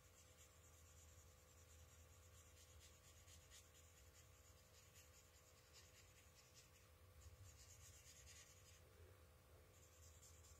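Faint scratching of an alcohol marker's brush tip coloring across cardstock in steady strokes, with a couple of brief pauses.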